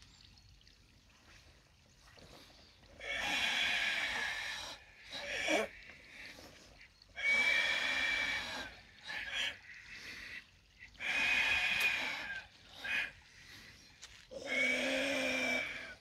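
A group of karateka doing the forceful ibuki breathing of the Tensho kata: four long, throaty exhalations about four seconds apart, each lasting about a second and a half, with shorter sharp breaths between them.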